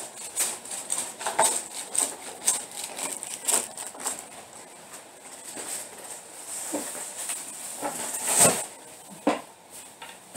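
Irregular rustling and knocking of shopping bags and boxed goods being handled and moved while a car is unloaded, with the loudest knock about eight and a half seconds in.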